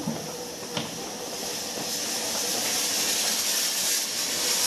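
Narrow-gauge saddle-tank steam locomotive moving off with its cylinder drain cocks open, steam hissing out around the wheels and growing louder from about two seconds in. A couple of short clicks in the first second.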